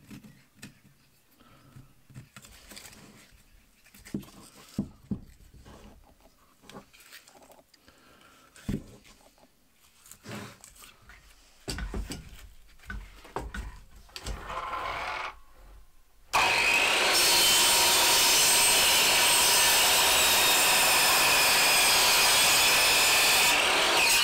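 Light knocks and rubs as a split birch log is handled and set on the saw. About sixteen seconds in, an AEG mitre saw cuts in loud and steady with a high motor whine, sawing through the log for about seven seconds, then drops away sharply.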